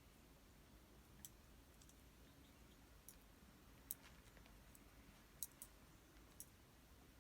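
Near silence: faint room tone with about half a dozen short, sharp clicks at irregular intervals.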